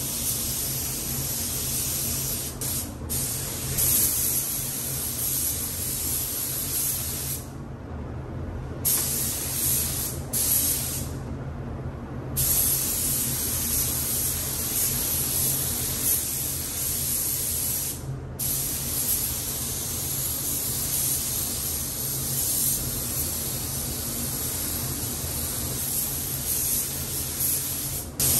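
Gravity-feed automotive paint spray gun hissing with compressed air as color is sprayed onto a car's panels. The hiss breaks off briefly several times as the trigger is released, over a steady low hum.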